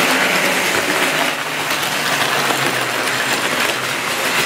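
Tri-ang model trains running on steel track: a steady rattle and rumble of wheels on the rails.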